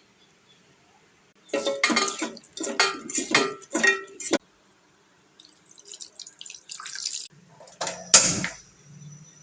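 Kitchen sounds: a spell of water splashing and dishes clattering, then lighter clicking, and one loud knock of a dish or utensil about eight seconds in that leaves a faint ring.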